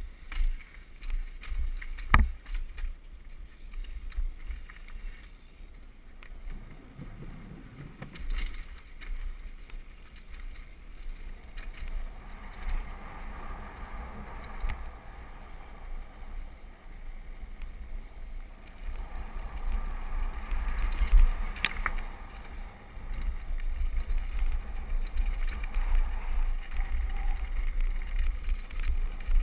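Mountain bike ridden fast downhill: tyres rolling and skidding over dirt and gravel with wind rumbling on the microphone, and the bike rattling over bumps. Sharp knocks about two seconds in and, loudest, a little past twenty seconds in.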